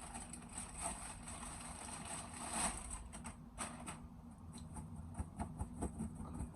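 Packaging rustling as a purse is unwrapped, loudest about two and a half seconds in, then a few light clicks or taps near the end, over a steady low hum.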